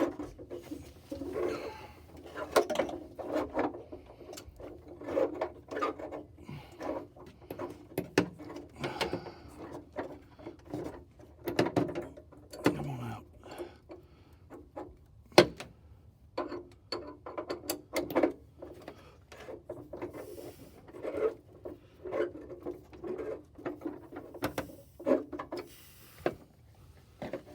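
Breaker bar and oxygen-sensor socket slowly working a seized upstream oxygen sensor out of the exhaust: irregular metal clicks and knocks with short squeaks from the tight threads.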